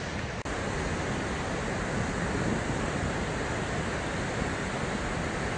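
Steady rushing of a mountain stream over rocks.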